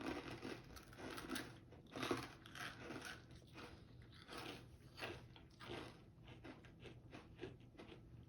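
Biting into and chewing thin, crispy apricot-and-vanilla cookies: a faint run of small, irregular crunches.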